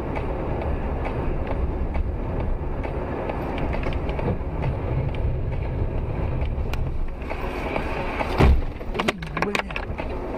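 Steady engine and tyre noise of a car driving on a wet road, heard from inside the cabin. About eight seconds in there is one loud bang, followed by a few sharp knocks.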